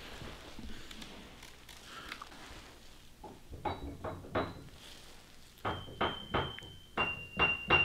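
Keys of an upright piano pressed one after another: about a dozen short, separate notes in the second half, with a couple of high notes ringing on near the end.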